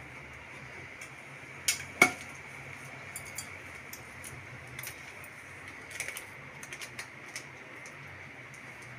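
Metal kitchen utensils clinking against an aluminium pressure cooker pot: two sharp knocks close together about two seconds in, the second ringing briefly, then a scatter of lighter ticks, over a faint low hum.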